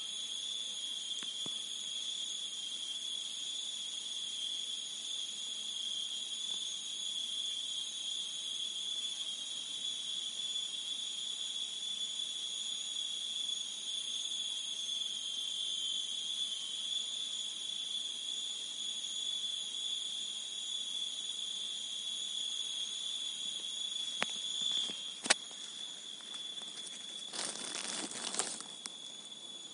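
Insects in a tropical forest keeping up a steady, high-pitched drone that fades out near the end. A couple of sharp clicks come just before it fades, and a brief burst of noise follows about a second later.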